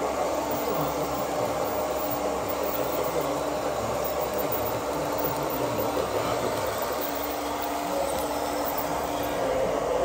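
Steady mechanical whirring and rumble from running RC model trucks or construction machines.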